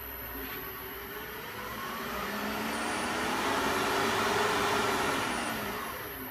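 A motor vehicle passing by, its noise swelling over about two seconds and fading away again.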